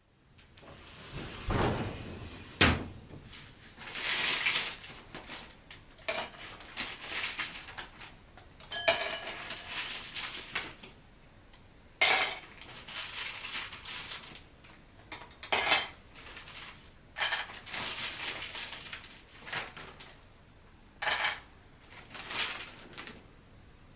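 Dishes and utensils being handled: a string of separate clinks, knocks and short scrapes every one to three seconds, with a heavier low knock about two seconds in.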